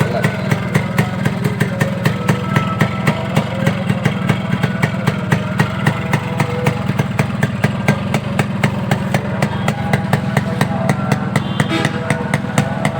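Yamaha RXS115's single-cylinder two-stroke engine idling steadily through its stock 5H5 silencer, with a sharp pop from the exhaust a few times a second.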